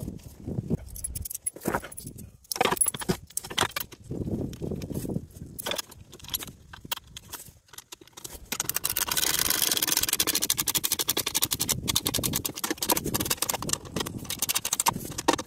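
Small metal fasteners and washers clinking and jangling as they are handled and fitted to the skid plate's mounting holes. From about halfway a dense, fast run of clicking takes over.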